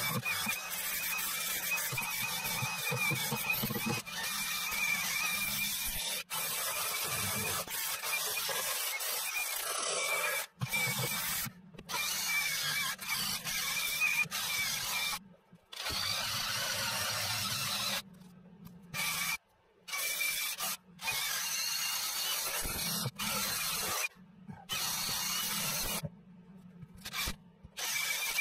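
DeWalt 20V cordless drill spinning a wire wheel against fiberglass, a rasping scrub over a steady high motor whine. It runs without a break for about ten seconds, then stops and starts again in several shorter runs. The wheel is scuffing the ground-out fiberglass so that epoxy and new glass will bond to it.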